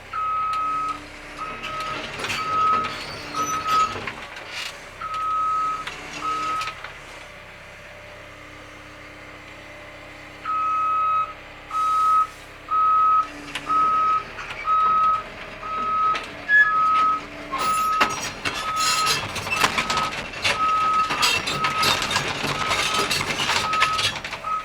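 Cat 320 excavator's travel alarm beeping, about one beep a second with a couple of pauses, as the machine tracks. Sharp metal clanks and rattles join in, growing busier and louder in the last several seconds.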